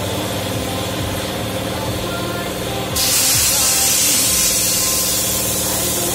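Compressed air from a tyre changer's air line starts hissing loudly about three seconds in, fitting the refitted motorcycle tyre being inflated, over a steady background hum.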